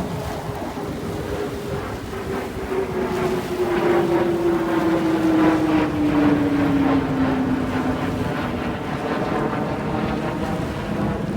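An engine passing by, its tone sliding steadily lower in pitch as it goes past and loudest about halfway through, over steady wind and surf noise.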